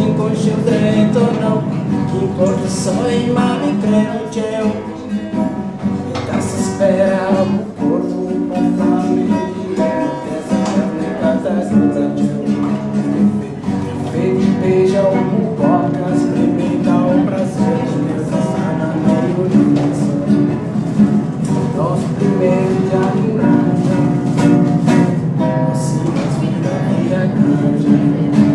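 Background music led by plucked guitar, running steadily throughout.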